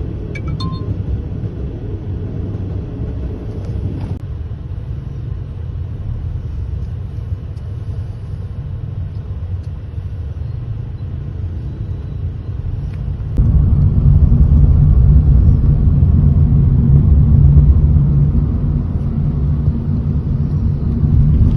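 Steady low rumble that suddenly grows much louder about thirteen seconds in.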